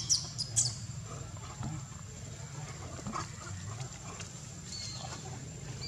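Macaque giving two short, shrill, high squeaks about half a second apart at the start, then falling quiet.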